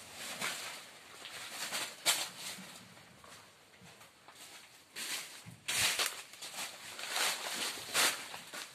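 Irregular rustling and crunching of dry leaf litter and banana leaves, as someone walks through the plantation with the camera, with sharper crackles about two seconds in, around five to six seconds in, and near the end.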